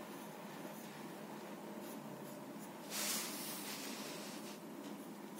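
Graphite pencil scratching on paper in short drawing strokes, with one louder stroke about three seconds in.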